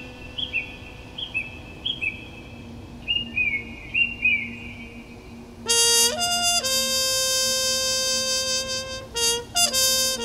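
Music: a low held tone under repeated short high chirps, like a bird's, then a trumpet comes in about six seconds in with a loud held note and a few short notes.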